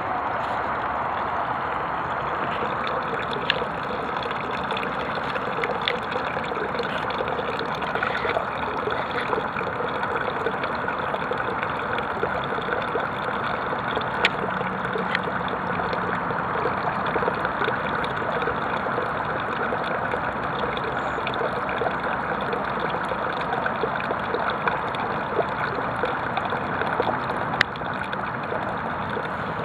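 Water trickling steadily from the outlet hose of the compost heater's pumped water loop into a tub, with a few faint clicks.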